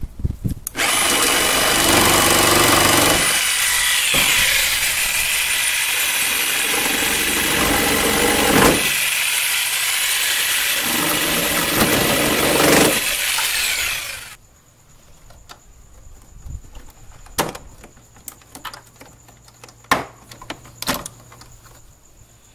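Corded Bosch jigsaw cutting through a plastic Jeep Wrangler fender flare, running steadily for about thirteen seconds with a few brief easings, then stopping suddenly. After that come scattered light clicks and handling as the turn-signal light is unclipped from the flare.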